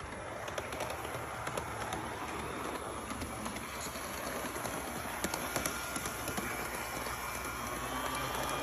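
Small electric model train running on its track: a steady whirr of motor and wheels with scattered light clicks.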